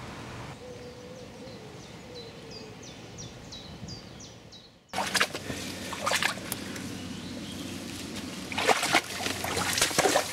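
Shallow stream water trickling and splashing in a stone culvert channel. In the first half a bird repeats a short high note about twice a second over a steady hiss. About five seconds in the sound cuts to louder, closer trickling and splashing with irregular spikes.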